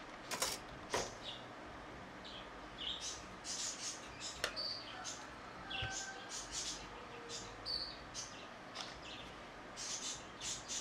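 Light clicks and taps of small plastic and metal parts as a camcorder lens block is handled and taken apart, with several sharper clicks and many short high-pitched chirps and squeaks scattered throughout.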